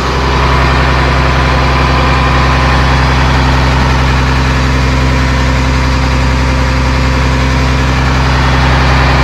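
School bus engine idling steadily, a low even hum with no change in speed.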